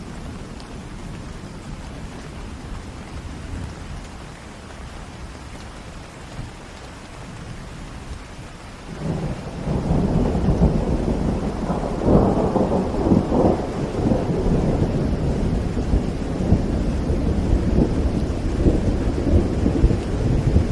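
Steady rain with a long roll of thunder that swells about nine seconds in, is loudest a few seconds later, and keeps rumbling to the end.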